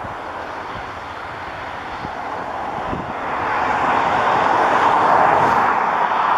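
Steady rushing noise of a distant engine passing by, growing louder about three seconds in and staying loud to the end.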